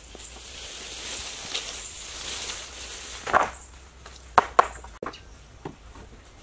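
Wooden poles knocking together as they are handled at a pile: a knock about three seconds in, two sharp knocks close together a second later, and a fainter one near the end, after a few seconds of high hiss.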